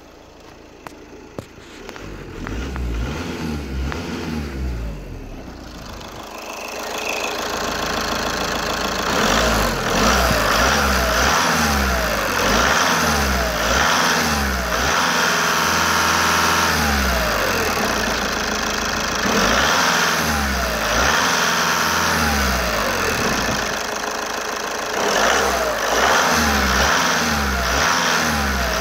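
Volkswagen 2.0 TDI (CFFB, 103 kW) common-rail four-cylinder diesel engine starting about two seconds in, then running and being revved again and again, its pitch rising and falling with each blip. It is louder from about eight seconds on, heard close up at the open engine bay.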